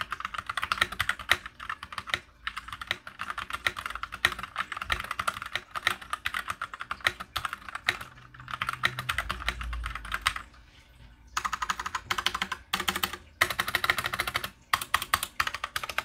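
Fast typing on a MageGee Star100 mechanical keyboard with Jixian red linear switches, the quiet kind: a rapid, continuous patter of key presses. It breaks off briefly about ten seconds in, then comes back in shorter bursts.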